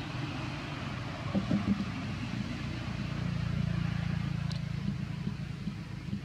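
Steady low hum of an engine running, with a few brief low thumps about a second and a half in.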